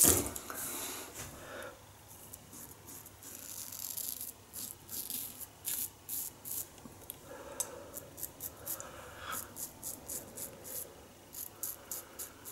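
1930s Gillette "New" Long Comb open-comb double-edge safety razor scraping through lathered stubble in many short, crisp strokes, faint and irregularly spaced. Running tap water cuts off right at the start.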